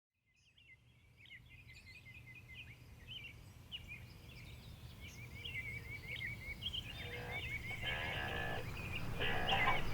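Birds chirping and twittering in quick, gliding calls over a low steady rumble, fading in gradually from silence. Music starts to swell in under it in the last few seconds.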